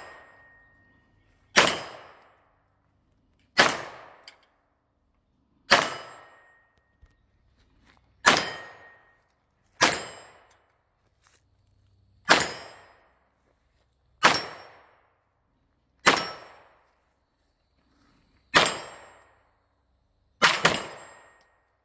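A 9 mm side-charging AR9 pistol firing single shots, about one every two seconds, the last two in quick succession as a double tap.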